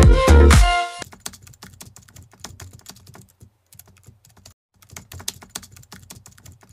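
Electronic dance music that cuts off about a second in, followed by rapid keyboard-typing clicks, a typing sound effect for on-screen text, with a brief pause about four and a half seconds in.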